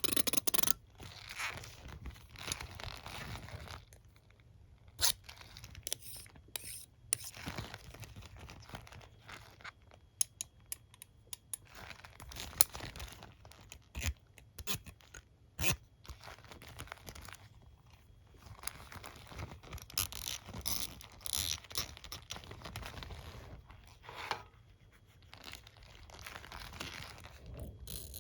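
A comb and a hairbrush handled close to the microphone: irregular scratching and scraping over the teeth and bristles, with a few sharp clicks.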